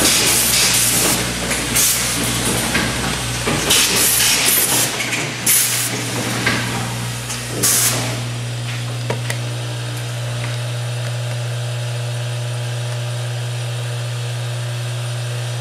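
Automated grommet assembly dial-table machine working: pneumatic actuators give sharp bursts of air hiss mixed with mechanical clunks. About eight seconds in the bursts stop, as the machine is brought to a cycle stop, leaving only a steady hum.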